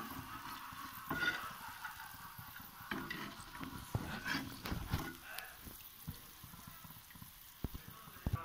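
Hot oil sizzling as batter-coated masala peanuts are scooped out with a perforated steel skimmer, with scattered sharp clinks and scrapes of the skimmer against the pan.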